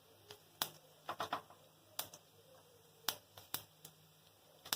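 Mustard seeds and cumin crackling in hot oil for a tempering: about a dozen sharp, irregularly spaced pops, some in quick clusters. The seeds spluttering is the sign that the oil is hot enough for the tempering.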